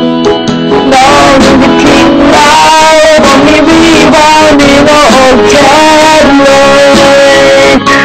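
Song music with plucked guitar accompaniment and a lead melody that slides and bends in pitch.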